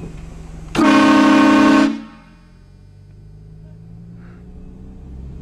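Train horn mounted on a vehicle, sounded in one loud blast of about a second that cuts off abruptly, with a low steady hum underneath.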